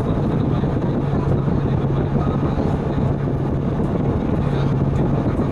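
Transit bus idling while stopped, heard from inside the cabin: a steady low engine hum with a constant drone over rumbling noise.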